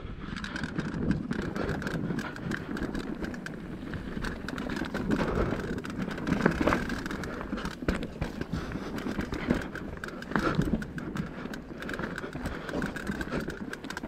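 Mountain bike riding downhill over a rough trail: continuous rattling and tyre noise with frequent sharp knocks as the bike hits roots and bumps.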